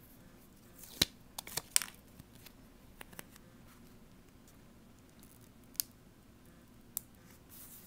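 A few sharp clicks and taps from handling a metal bottle cap while an adhesive magnet disc is pressed onto its back. A cluster of clicks comes about a second in, then two single clicks later.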